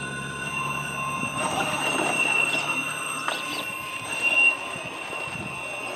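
Axial SCX6 rock crawler's electric drive whining steadily as it creeps over rock, with scattered scrapes and knocks of tires and chassis on stone. It gets briefly louder about four seconds in.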